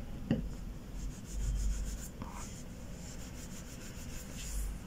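A cotton wad rubbing white acrylic paint onto a small piece of craft foam on a cutting mat, giving a soft, scratchy rubbing. There is a short tap about a third of a second in and a low bump of hands on the table around a second and a half in.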